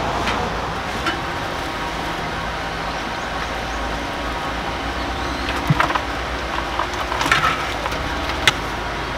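Steel knife clicking and scraping against a wooden cutting board, a few short sharp strokes in the second half, over steady background noise.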